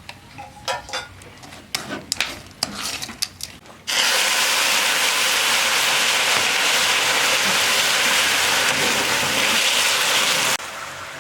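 Irregular clicks and scrapes, like a utensil working in a pot. About four seconds in they give way to a loud, steady hiss that starts suddenly, holds for about six seconds and cuts off abruptly.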